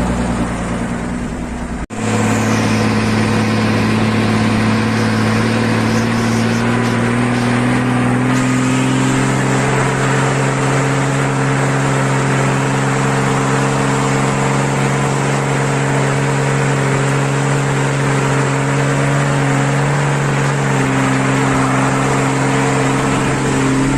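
Diesel engine of a loaded Mercedes-Benz 1620 truck pulling hard under load, its exhaust growling. The revs climb slowly for the first several seconds and then hold steady.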